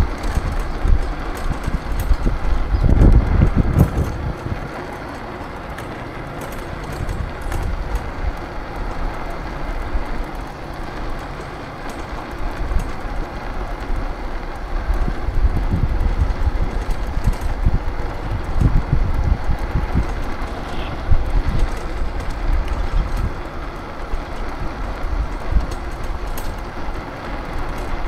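Wind buffeting the microphone and road noise while riding an electric scooter, a steady rushing rumble with stronger gusts about three seconds in and again around sixteen to nineteen seconds.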